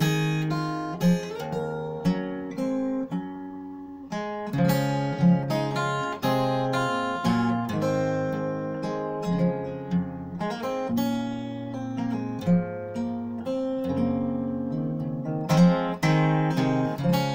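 Solo acoustic guitar played fingerstyle: an Irish traditional tune, with a picked melody over bass notes.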